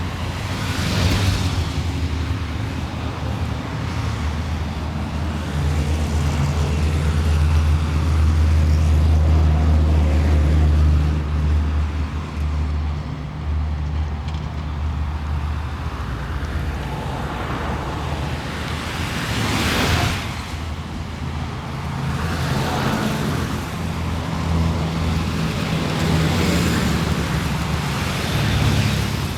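City street traffic: a steady low engine drone from road vehicles, loudest from about six to eleven seconds in, with cars passing by about a second in, around twenty seconds in and near the end.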